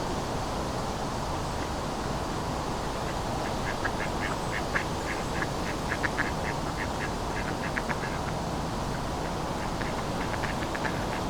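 Steady autumn wind with a low hum of distant city traffic. Over it, a duck quacks in quick runs of short calls from about three seconds in, pausing briefly and starting again near the end.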